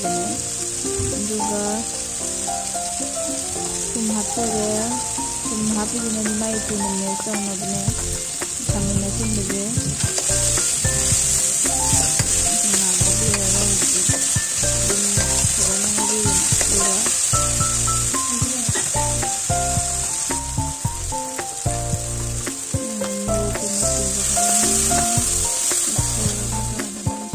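Food sizzling as it fries in a pan, louder from about ten seconds in to twenty and again near the end, with soft melodic background music throughout.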